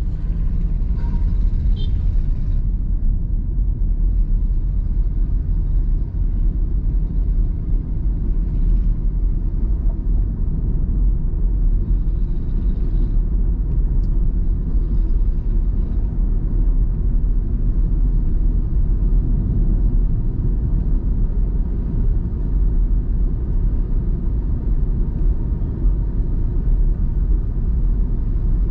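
Steady low rumble of a car driving, road and engine noise heard from inside the cabin through a windshield-mounted dashcam.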